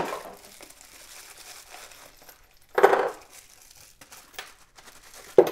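Plastic bubble-wrap pouch crinkling and rustling as hands work it open, with a louder rustle about three seconds in.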